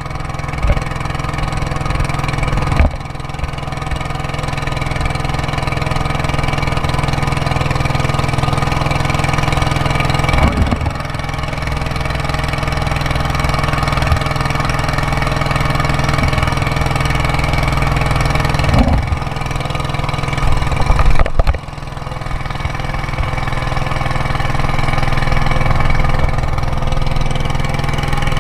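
A small wooden boat's engine running steadily under way, with a few brief knocks along the way.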